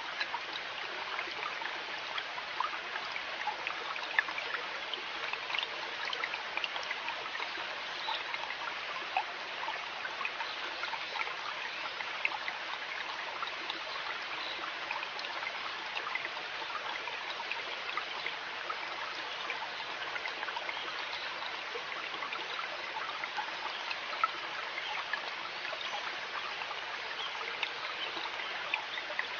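River water running and trickling steadily: a constant rush dotted with many small splashes and drips.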